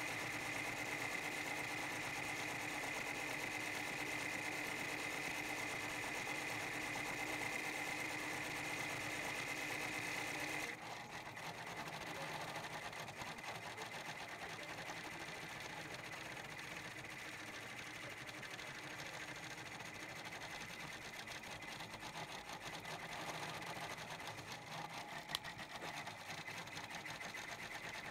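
Brother PR1000e 10-needle embroidery machine running, stitching out appliqué lettering. It runs with a steady high hum until it changes abruptly about ten seconds in, leaving a quieter, fast, even ticking of the needle, with one sharp click near the end.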